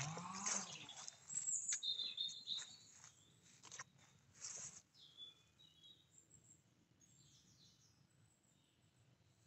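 Birds calling and chirping, with a louder call right at the start and a few short, sharp sounds over the first five seconds; after that only faint chirps remain.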